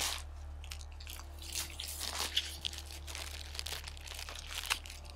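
A plastic snack-bar wrapper crinkling and tearing as it is opened by hand, in a string of irregular crackles.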